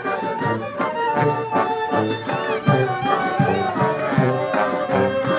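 Klezmer band playing a tune live: a melody line over a steady beat, with a low bass note about twice a second.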